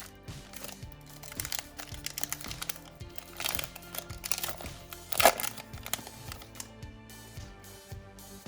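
Foil Pokémon booster pack wrapper crinkling as it is handled and opened, with a louder crackle about five seconds in, over background music.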